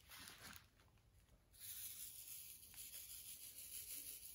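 Faint rattling of small resin diamond painting drills, poured into and moved about in a plastic tray, in two stretches: a short one at the start and a longer one from about a second and a half in.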